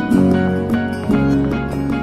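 Background music, with new pitched notes coming in about twice a second.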